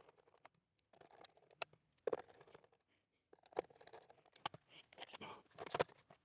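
Sparse small clicks and knocks of a ZX Spectrum 48K's plastic case being screwed back together and handled: a screwdriver and small screws working on the case, then the computer turned over onto the bench.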